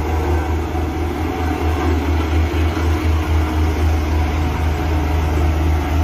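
Bomag single-drum road roller running steadily, a loud, deep, even diesel hum.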